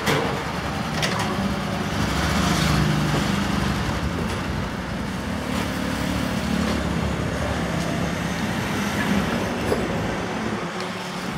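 Honda CB500X's parallel-twin engine running as the motorcycle pulls away for a test ride. Its low engine note is strongest a few seconds in and then fades under steady street traffic noise.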